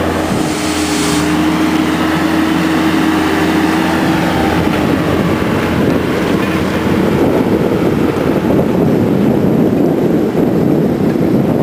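Skid steer loader's engine running as the machine drives along, at first with a steady hum, growing rougher and louder from about seven seconds in.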